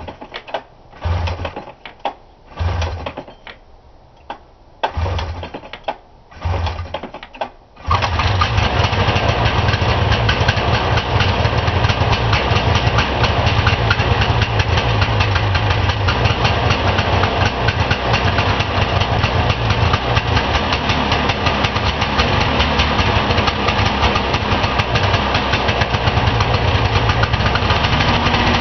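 1978 Arctic Cat Pantera snowmobile's 500 cc Suzuki fan-cooled two-stroke engine being cold-started on choke with the recoil pull rope: several pulls about a second apart, each a short burst, then it catches about eight seconds in and keeps running steadily.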